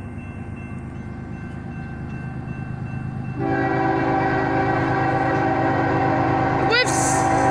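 Diesel locomotive of a Central Maine & Quebec freight train sounding its multi-chime air horn on the approach to a grade crossing, over the low rumble of the train. The horn steps up sharply in loudness about three and a half seconds in and holds.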